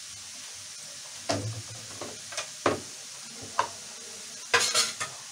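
Potato fries deep-frying in hot oil in a pan: a steady sizzle, with a handful of sharp clicks and knocks between about one and five seconds in, the last ones a quick cluster.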